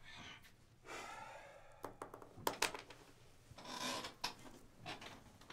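A man breathing out heavily twice, as in deep sighs, with a few soft clicks and small handling noises between them.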